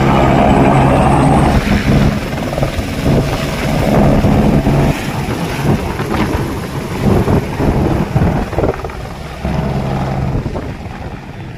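Single-engine turbine helicopter lifting off and flying away, its turbine whine and rotor thump steady at first, then turning uneven and gusty and fading toward the end.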